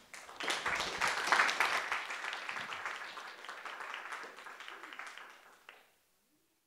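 Audience applauding: a dense patter of handclaps that swells within the first second or so, then gradually dies down and cuts off shortly before the end.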